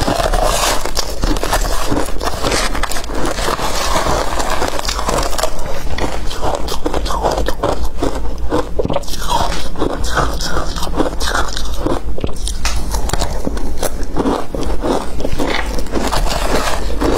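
Close-up crunching and chewing of frozen, matcha-dusted ice, a rapid run of crisp cracks that goes on without a break, mixed with a metal spoon scraping and digging through crumbly ice in a plastic tub.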